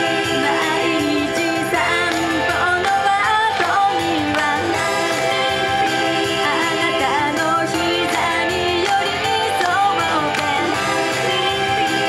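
Two girls singing an upbeat Japanese idol pop song live into handheld microphones over pop backing music, amplified through a PA.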